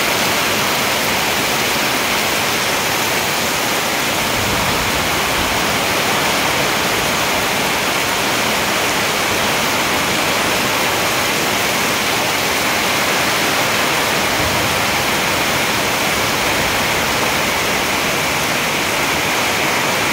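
Heavy rain falling in a loud, steady downpour on trees and foliage, with water streaming off a roof's edge.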